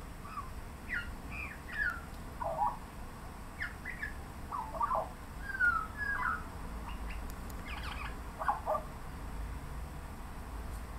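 Australian magpie singing a string of short, varied chirps and squawks, one after another, that stop about nine seconds in.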